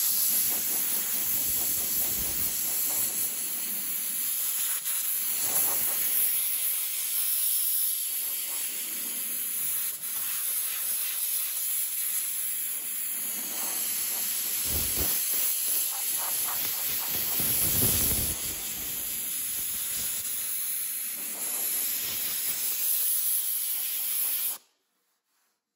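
Compressed air hissing steadily from a handheld air blow gun played over a welded steel fender panel to cool it; the air cuts off suddenly near the end.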